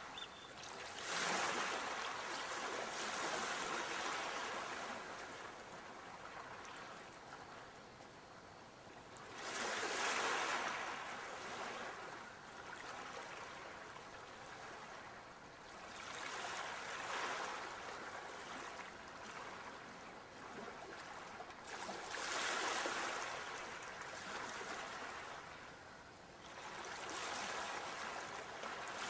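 Ocean waves washing onto a shore: a steady hiss of surf that swells and falls back five times, each swell coming some six to nine seconds after the last.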